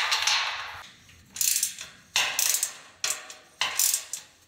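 Ratchet wrench clicking in short repeated strokes, tightening the nuts onto the bolts that join the two platform sections of a hunting blind.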